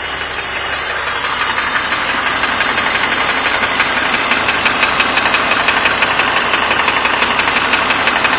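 BMW M54B30 straight-six engine of a 2003 E46 330i running, with a fast, even ticking knock over the engine note that grows a little louder after about two seconds. The owner takes it for a bottom-end noise, most likely piston slap.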